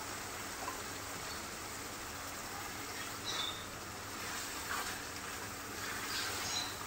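A plastic spatula stirring boiled black-eyed peas through thick keema masala in a frying pan, giving a few soft scrapes and squelches from about three seconds in. A faint steady hiss from the simmering pan runs underneath.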